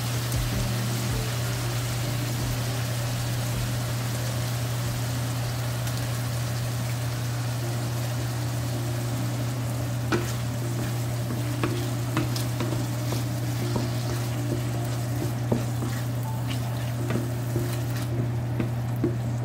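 Ground beef and onions sizzling in a stainless steel frying pan. From about halfway through, a wooden spatula scrapes and taps against the pan as tomato sauce is stirred in. A steady low hum runs underneath.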